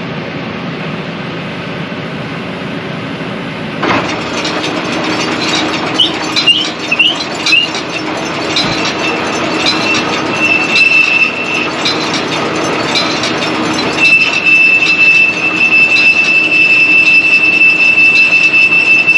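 Tractor-driven John Deere 459 round baler running, getting louder about four seconds in, with a high-pitched squeal that comes first as short chirps and then holds as one long steady squeal. It is an abnormal noise, not normal for the baler, from a part that is squealing as it turns.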